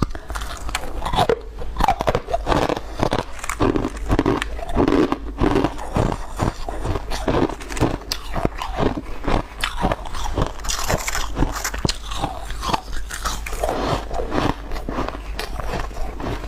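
Close-up biting and chewing of powdery shaved ice chunks: crisp, squeaky crunches, several a second, in an uneven rhythm.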